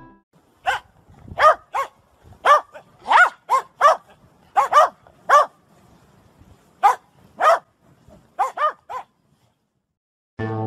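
A dog barking: about fifteen short barks, some single and some in quick pairs and triples, which stop about a second and a half before the end.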